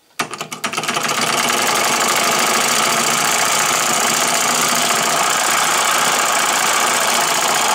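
Homemade two-solenoid model electric engine on 12 volts, flicked into motion: a few separate clacks that quicken within about a second into a fast, steady, noisy clatter as it runs.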